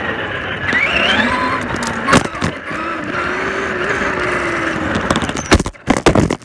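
Traxxas Slash RC truck driving, with a rough rushing noise and a motor whine that rises and falls with the throttle. A single knock comes about two seconds in, and a quick run of sharp knocks and clatter comes near the end.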